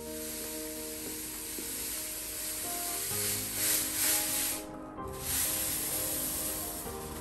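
Fine citric acid powder pouring from a bag into a glass jar: a steady grainy hiss that swells, breaks off for a moment about five seconds in, and starts again. Soft background music with held notes plays underneath.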